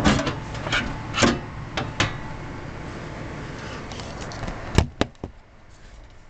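Knocks and clatters of an Antec 300 computer case being handled: a quick series of sharp knocks in the first two seconds and a few more about five seconds in, over a steady low hum that fades soon after.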